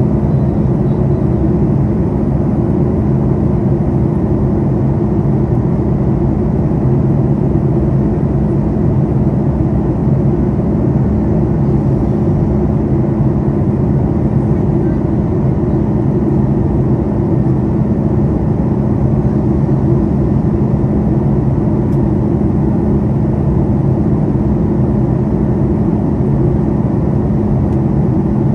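Steady cabin noise of a Boeing 737 MAX 8 in flight, heard from a window seat over its CFM LEAP-1B engine: a low, even rush of engine and airflow with a few steady low hums running through it.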